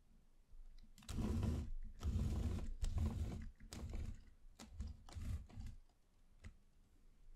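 Wooden popsicle-stick model house turned by hand on a tabletop: its base scrapes and rattles against the surface in several short bursts, followed by a few sharp clicks.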